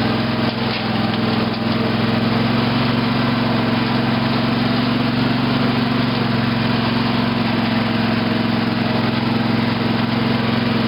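Craftsman II lawn tractor's 18.5 hp Briggs & Stratton Intek engine running at a steady, unchanging speed.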